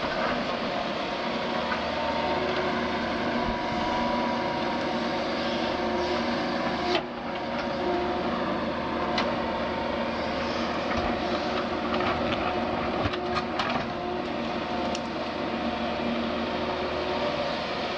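Doosan DX180 LC crawler excavator running steadily at working revs, its engine and hydraulics holding a steady hum. A sharp knock comes about seven seconds in, another shortly after, and a cluster of knocks and cracks about two thirds of the way through as the machine works the ground.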